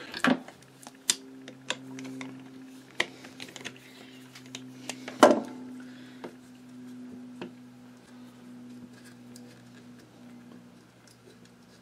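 Scattered small metallic clicks and knocks of hands working at the motor mount of a Singer 192K sewing machine as the motor is unbolted, with one louder knock about five seconds in. A steady low hum runs underneath.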